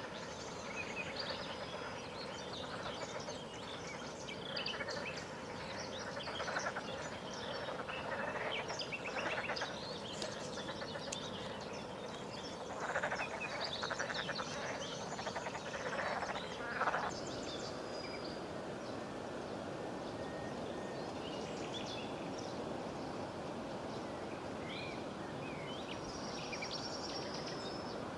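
A chorus of frogs croaking in rattling, pulsed calls over steady background noise. About two-thirds of the way through the frogs stop, leaving the background with a few faint bird chirps.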